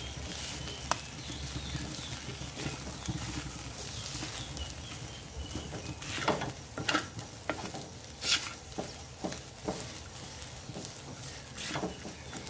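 Wooden spatula scraping and stirring rice around a steel wok over a low sizzle of frying rice, breaking up the clumps; the scrapes come more often in the second half.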